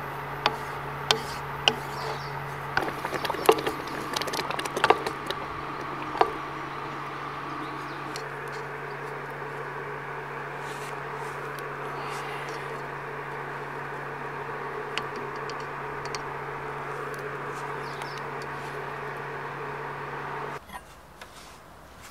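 A wooden spoon knocks and scrapes against a nonstick pot of thick tomato sauce in a run of sharp clicks during the first six seconds. Under it a portable induction hob runs with a steady low hum that cuts off near the end.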